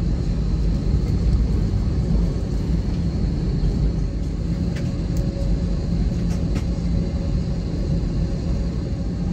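Steady low rumble of an Airbus A321's cabin on the ground just before takeoff: engine and air-conditioning noise with a faint high whine, and a few faint clicks midway.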